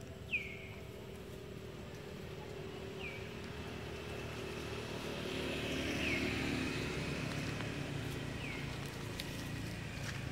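A distant motor vehicle engine running steadily, growing a little louder toward the middle, with short falling chirps every few seconds.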